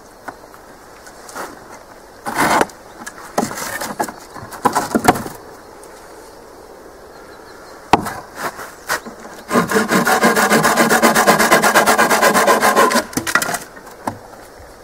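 Hand saw cutting through a dead wooden stick in a quick run of strokes for about three seconds near the end, after several knocks of sticks being handled and set in place.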